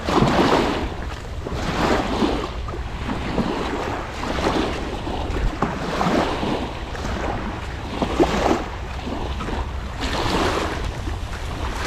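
Sea waves washing against the shore, swelling and falling about every one to two seconds, with wind buffeting the microphone.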